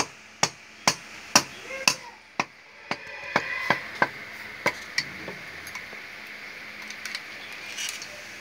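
Sharp knocks of a piston and connecting rod being worked by hand in an air-cooled engine's cylinder liner: about two a second at first, then a few irregular ones, dying out about five seconds in.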